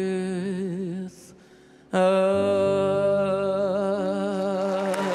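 A man singing the last words of a slow song, holding a long note with vibrato, a short break, then a final long held note over sustained instrumental accompaniment. Applause starts to rise near the end.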